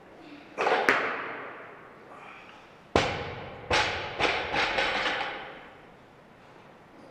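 Barbell loaded to 110 kg with bumper plates: plates clank as the lifter stomps into the snatch catch under a second in. About three seconds in the bar is dropped from overhead onto the lifting platform with a loud crash, then bounces three or four times with rattling plates, the bounces dying away.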